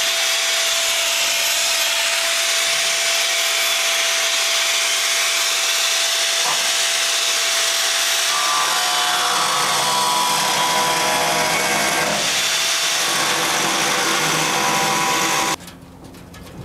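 Corded angle grinder with a thin cutoff wheel cutting through the rusty sheet-steel side of an old International pickup bed, running steadily with a constant whine. Higher ringing tones from the cut join in about halfway through, and the grinder shuts off about a second before the end.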